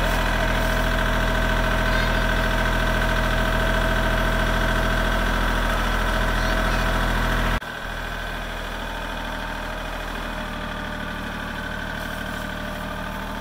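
Kubota compact tractor's diesel engine running steadily at idle. About seven and a half seconds in, the sound drops abruptly in level and changes tone, then carries on steadily.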